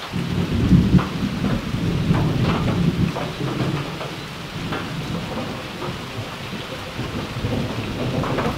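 Heavy rain pouring down over a low rumble, with scattered louder drop hits.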